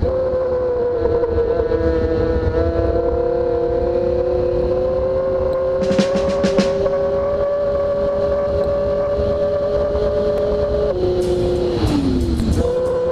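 Engine of a Formula 700 racing powerboat running hard at high, steady revs, heard from onboard. About eleven seconds in, the revs drop with a falling pitch, then pick straight back up just before the end. A few short knocks come about six seconds in.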